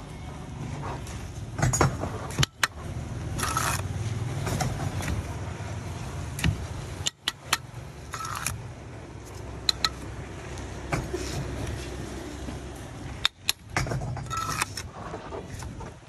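Steel bricklaying trowel scraping mortar and clinking against bricks and the mortar pan, giving sharp clicks and short scrapes, over a steady low hum.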